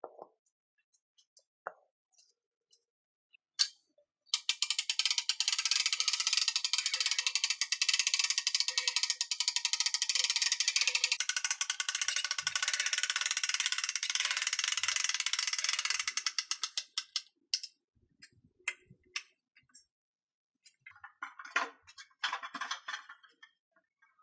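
Hand winch of a homemade mini forklift being cranked, its ratchet clicking very fast and evenly for about twelve seconds, then a few scattered knocks and some clattering as the forklift is moved.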